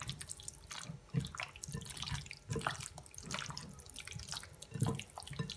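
Bare hands kneading and squeezing raw chicken wings in a wet tomato-and-vinegar marinade in a glass bowl: irregular wet squelches and squishes.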